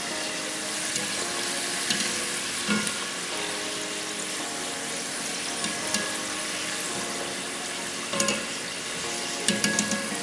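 Egg-dough pieces deep-frying in vegetable oil in a pot, a steady sizzle. A wire skimmer stirs them and clinks lightly against the pot a few times, near 2 s, about 8 s and just before the end.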